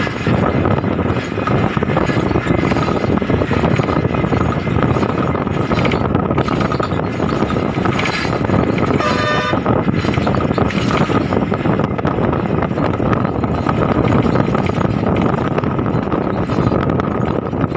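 Steady road and wind noise from riding in a moving vehicle across a bridge, with traffic passing alongside. A vehicle horn honks once briefly about nine seconds in.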